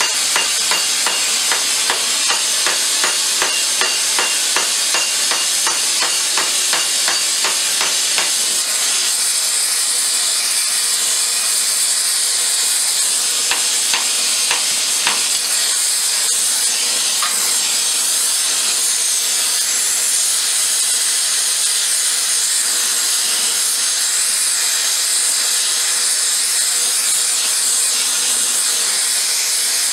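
Gas torch hissing steadily on a hot steel pipe held in a vise, while a hammer strikes the pipe about twice a second for the first eight seconds, then a few scattered blows just before the middle; the rest is the torch alone.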